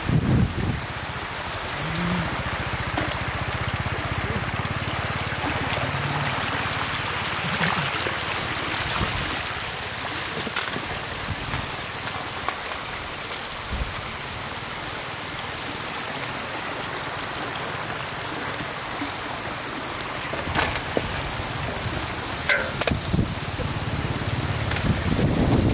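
Shallow water running steadily in a stream across the ground, with a few brief splashes and knocks.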